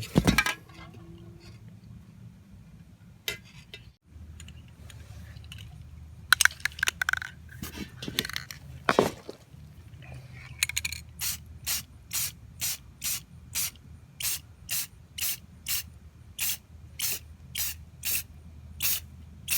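Aerosol spray can hissing out clear coat in short bursts: a few irregular sprays first, then a steady run of quick puffs about two a second through the second half.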